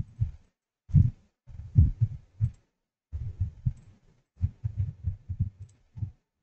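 Dull, low thumps and taps in quick, irregular clusters: mouse clicks and desk knocks picked up by the microphone as a number is keyed into an on-screen calculator.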